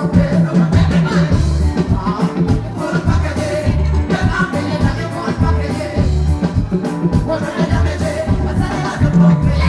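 Live music performance: a pop song with a steady bass and drum beat and a woman singing over it.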